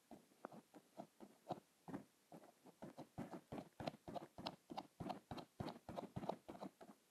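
A rapid, irregular run of soft clicks and taps close to the microphone, several a second.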